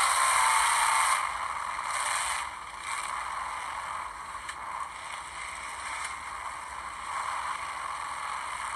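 Enduro race cars lapping an oval track, a steady wash of engine and tyre noise that is loudest at first and drops back after about a second.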